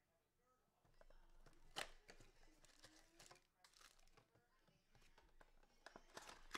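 Faint handling noise from a 2020 Donruss Optic football blaster box and its foil card packs: soft rustling with a few sharp taps, the loudest about two seconds in and near the end.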